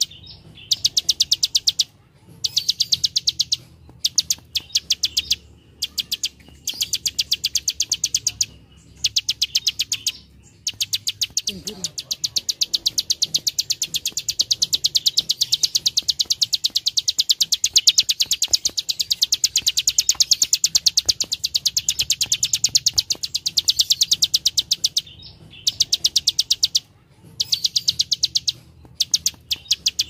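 Plain prinia (prenjak sawah) singing its clicking song: fast trains of dry, high 'klik' notes in bursts of one to three seconds with short pauses, and one long unbroken run of over ten seconds in the middle.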